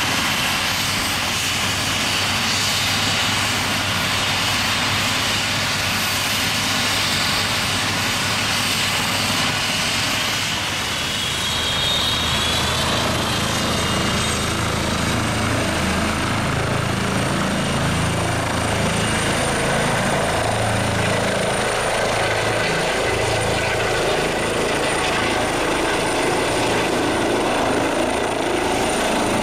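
Airbus EC135 twin-turbine helicopter running with its rotors turning, a steady turbine whine over the rotor beat. It then lifts off, and the low rotor beat grows stronger in the second half.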